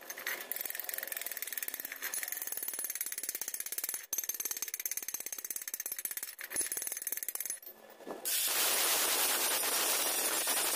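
A chipping hammer working slag off a fresh weld on square steel tubing, a rapid run of ticks and scrapes. About eight seconds in, an angle grinder starts grinding the weld down: a steady, louder grinding noise.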